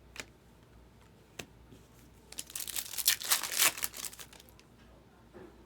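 Two light clicks of cards being handled, then about two seconds of crinkling and tearing of plastic packaging during a trading card box break.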